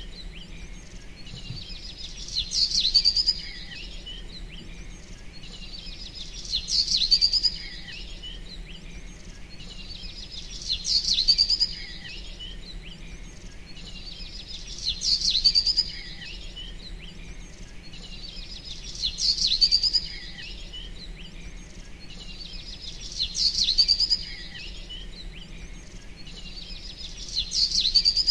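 Bird chirping: the same short burst of high chirps comes back about every four seconds, over a low steady hum.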